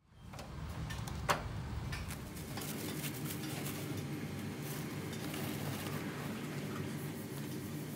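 Steady hum of a small workroom, with light clicks and rustles as a neoprene wetsuit is handled and folded. One sharp click stands out about a second and a half in.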